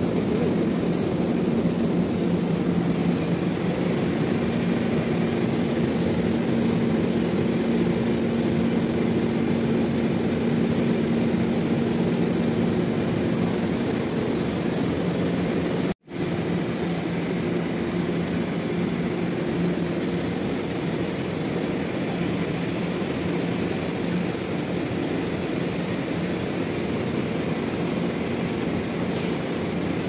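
Steady hum of running industrial machinery, a few low steady tones over an even noise; it drops out for an instant about halfway through.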